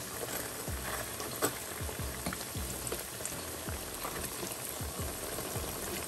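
Cassava bami shallow-frying in hot oil in a pan: a steady crackling sizzle, with a few light clicks as a fork turns the pieces.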